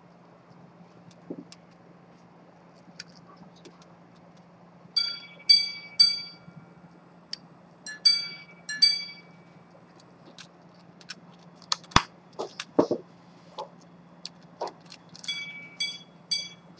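Antique minute-repeater pocket watch striking its gongs: three ringing strikes about five seconds in, three more about three seconds later, then a quicker run of strikes near the end. Between the chimes come small clicks and knocks of the case being handled, the loudest a sharp snap about twelve seconds in as the hunter lid is shut.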